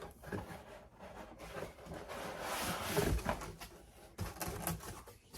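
Packaging being handled while unboxing: rustling and rubbing with scattered light knocks, and a low thump about three seconds in.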